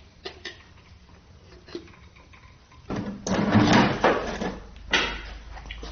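A few light clicks, then about three seconds in a loud, second-long clatter and scrape of metal engine parts being handled, with another sharp clank near the end.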